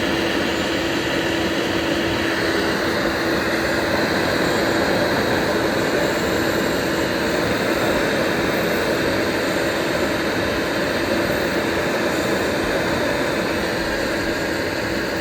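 CNC router spindle running at 18,000 RPM with a steady whine, while a 1/8-inch O-flute bit moves through the clearing pass in plywood, adding a steady noisy cutting sound.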